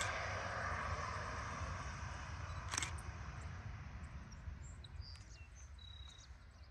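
Distant jet noise from an Embraer Phenom 300's twin turbofans, a steady hiss that fades away over the first few seconds as the aircraft moves off down the runway. Under it, wind rumbles on the microphone, with a sharp click about three seconds in and a few bird chirps near the end.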